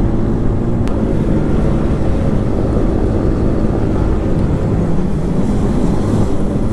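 Yamaha R15's 155 cc single-cylinder engine running steadily as the motorcycle is ridden and leaned through a curve, with a brief click about a second in.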